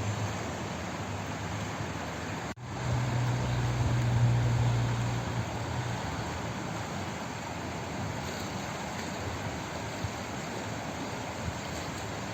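Steady rush of flowing water, an even hiss with no change in character. About two and a half seconds in the sound cuts out for an instant, like a splice, and a low hum sits under the water for a few seconds after.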